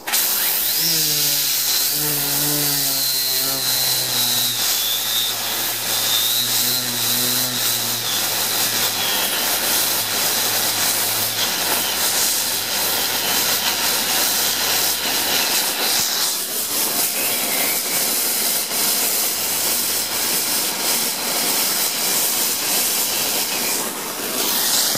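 Pressurised steam jetting from a hose onto a small homemade bladed steam turbine wheel, a loud steady hiss throughout. In roughly the first dozen seconds a high whine and lower shifting tones from the spinning wheel ride over the hiss. By the end it sounds to its builder like it is getting really out of balance.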